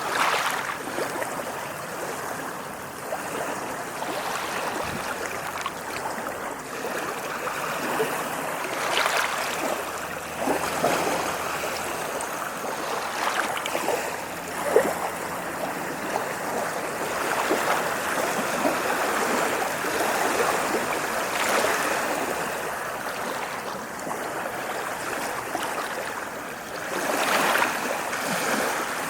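Ocean waves washing onto a shore: a continuous rush of water that swells and ebbs, with stronger surges every several seconds.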